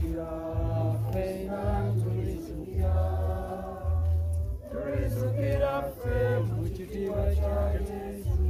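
A group of people singing a hymn together in long, held notes, with a low beat underneath about once a second.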